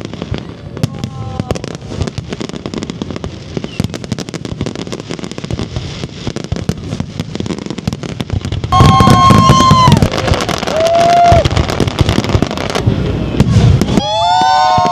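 Aerial fireworks crackling and popping in a dense, continuous barrage that grows louder about nine seconds in. Loud held whoops from onlookers rise over it twice, about nine seconds in and near the end.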